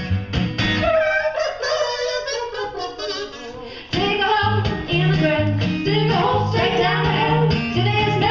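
Live acoustic music: women's voices singing over a strummed acoustic guitar. The guitar drops out about a second in, leaving the voices alone, and comes back in about four seconds in.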